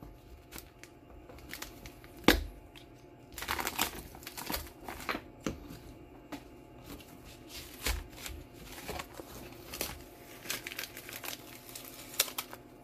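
Pieces of 3/8-inch cast acrylic being pried up off double-sided tape with a flat metal tool and handled: irregular clicks, scrapes and knocks of the stiff plastic, with crinkling of peeled protective film. A sharp knock about two seconds in is the loudest sound.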